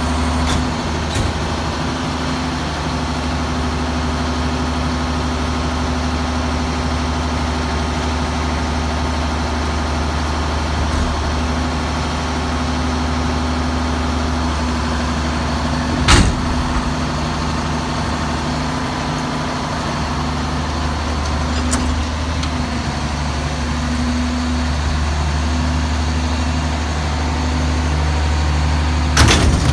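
Mack MR garbage truck's diesel engine running steadily while the Leach rear loader's cable winch hoists a steel dumpster up to tip it into the hopper. One sharp bang comes about halfway through, and a few metal clanks come right at the end.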